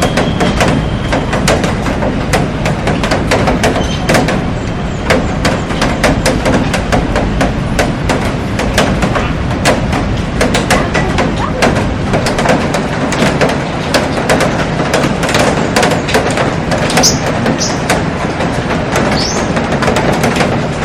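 Heavy rain falling on a glass roof and garden: a steady dense hiss with many sharp drop taps on the glass. A few short, high, rising chirps come through near the end.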